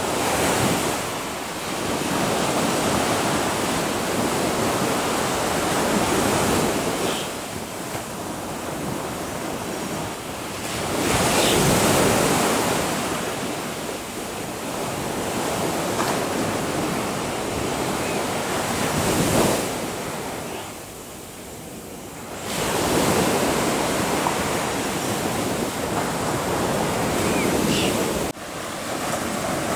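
Surf washing onto a sandy beach, the sound of the sea swelling and falling back every five or six seconds.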